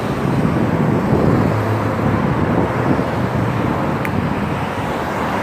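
Steady low vehicle rumble with road noise, even throughout.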